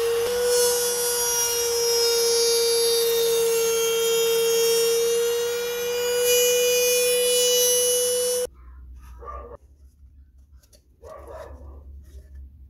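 Trim router running at full speed in a router table with a steady high whine, its pitch sagging slightly as it cuts a slot in a plywood plate. It shuts off suddenly about eight seconds in, and a few faint short barks follow.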